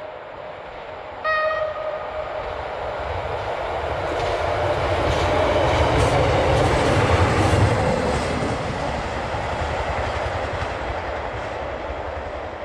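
Two-car diesel railcar of class 628 sounds a short horn blast about a second in, then passes at speed. The diesel rumble and the wheels on the rails build to their loudest midway and fade away as it goes.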